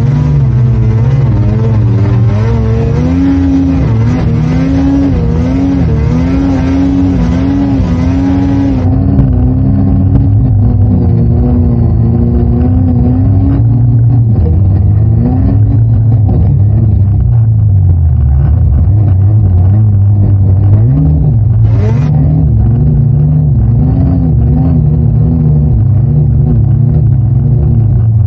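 Snowmobile engine working hard in deep powder, its pitch rising and falling continually as the throttle is opened and eased. It is loud throughout.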